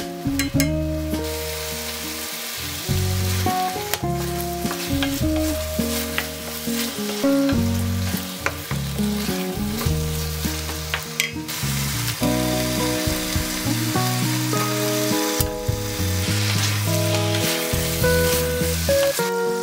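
Eggplant, minced pork and doubanjiang sizzling in a stainless steel frying pan while a wooden spatula stirs and scrapes, with a few sharp clicks of the spatula against the pan. Background music plays over the sizzle.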